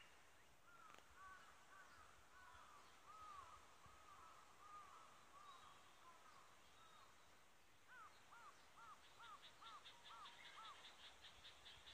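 Faint outdoor birdsong. A bird repeats short arched notes, then gives a quicker run of about seven notes near the end. A fast, high ticking trill starts about nine seconds in.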